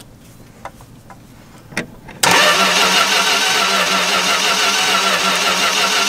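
Starter motor cranking a 318 polyhead V8 that does not fire. It cuts in abruptly about two seconds in and runs on steadily with a fast, even pulsing, while a plug wire is checked for spark in a cranks-but-won't-start fault.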